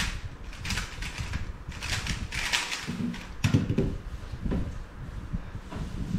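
3x3 speedcube being turned fast in a speedsolve, a flurry of plastic clicking and rattling. About three and a half seconds in the cube is set down hard with a thump as the timer is stopped, followed by a few more knocks.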